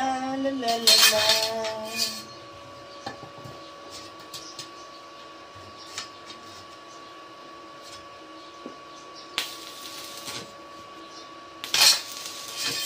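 Short bursts of arc-welding crackle as steel fence pipe is tack-welded: a brief one about a second in, another around the middle of the second half, and a louder one near the end, over a steady faint whine.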